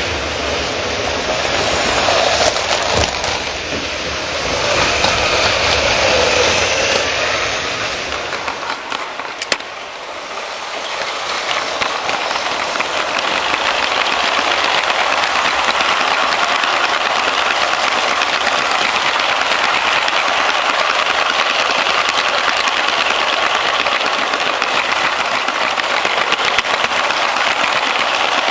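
A LEGO train running over plastic track, heard close up from on board: its wheels and motor make a steady, dense clatter. About nine seconds in there is a break, and the steady on-board clatter takes over from a more uneven train-running sound.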